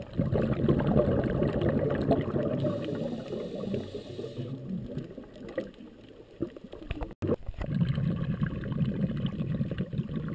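Underwater bubbling and gurgling from scuba exhaust bubbles, low and muffled. It drops off for a couple of seconds, breaks off briefly about seven seconds in, then picks up again.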